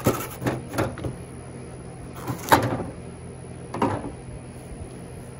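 Old rear spoiler being pried off a 2015 Mustang GT's trunk lid: a handful of sharp pops as its mounting clips and studs snap free of the lid, the loudest about two and a half seconds in.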